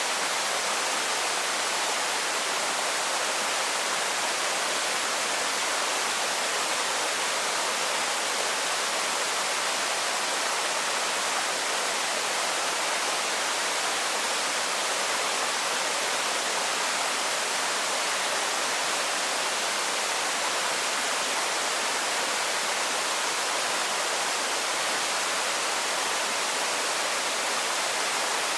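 Waterfall rushing steadily: an even, unbroken hiss of falling water, with little deep rumble beneath it.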